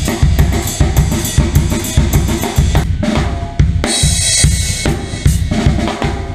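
Drum kit playing a groove: a steady bass drum about twice a second under snare and hi-hat, with a cymbal crash about four seconds in.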